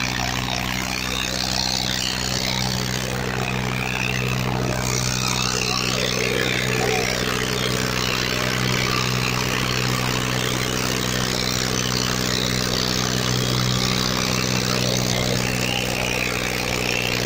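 Farmtrac 45 tractor's diesel engine running steadily under heavy load as it drags two harrows hitched in a line through soft soil.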